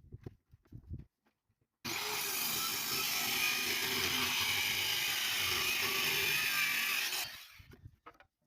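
A few light knocks of wood being handled. Then a power tool cuts or works wood for about five seconds, starting abruptly and winding down at the end.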